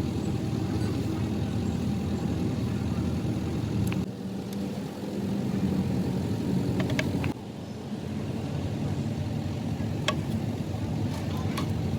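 An engine running steadily, with a few sharp metallic clicks. Its sound shifts abruptly about four seconds in and again after about seven seconds.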